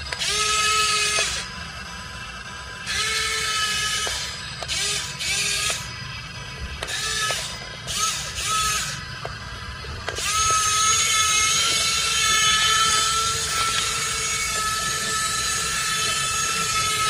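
The electric gear motors of a Yigong toy RC excavator whine as the arm, bucket and turntable move. For the first ten seconds they run in short stop-start bursts, then from about ten seconds in they run without a break.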